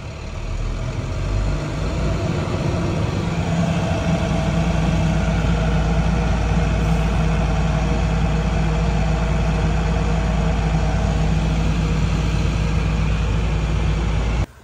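Diesel engine of an International truck running, heard from inside the cab. It grows louder over the first few seconds, then holds a steady low hum.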